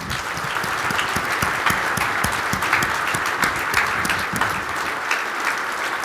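A large audience applauding: dense clapping that starts abruptly and holds steady.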